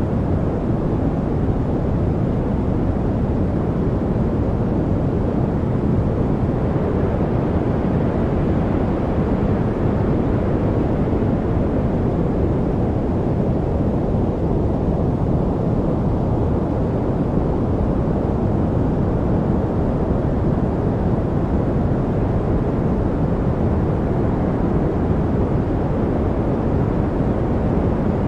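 Steady background noise for studying: a deep, even hiss with most of its weight low down, swelling slowly and gently in the higher part now and then.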